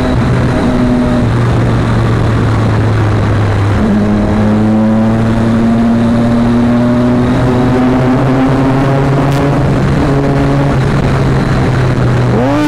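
Triumph Daytona 675's three-cylinder engine with a Yoshimura slip-on exhaust, heard from the moving bike under a loud, steady rushing noise; from about four seconds in its pitch climbs slowly for a few seconds as the bike accelerates.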